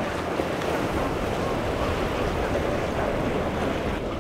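Waves and surf washing steadily, with wind buffeting the microphone and a center-console boat's Yamaha outboard running low beneath it.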